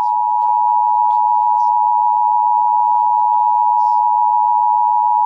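Emergency Alert System attention signal: a loud, steady two-tone beep held without a break, with faint voices beneath it.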